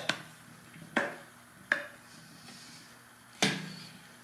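Stainless steel teat cups of a Surge bucket milker clinking and knocking as they are handled on a wooden bench: four sharp, separate clinks with a short ring.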